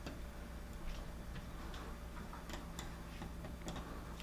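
Scattered light clicks and taps at irregular spacing, over a steady low hum.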